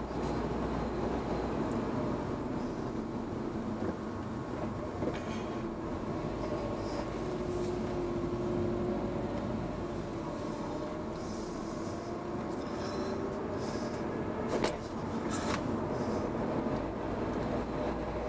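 Car driving along a paved road, heard from inside the cabin: steady engine and tyre noise, with a faint tone that slowly rises and falls as the speed changes. A single sharp knock comes about three-quarters of the way through.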